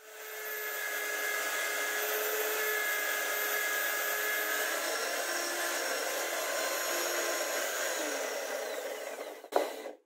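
Electric drill in a homemade drill press running and boring a small hole through a plywood block, a steady motor whine that spins up at the start and dies away near the end. A sharp click comes just before it stops.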